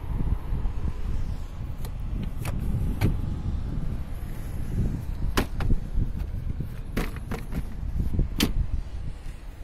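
The Mazda 5's fold-out second-row middle seat and its under-cushion storage console being moved by hand. It gives a string of sharp plastic clicks and knocks as the cushion, seatback and bin lid are lifted, folded and latched, over a low handling rumble.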